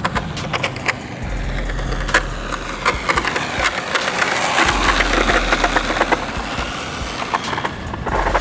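Electric RC car (Redcat Earthquake 8E with a 1350kv sensored brushless motor) running at speed on asphalt: tyre noise and motor whine swell and glide as it passes about four to five seconds in, with crackling ticks throughout.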